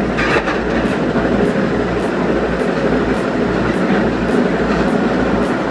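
A heavy industrial crushing or shredding machine running under load: a loud, steady grinding rumble that does not let up.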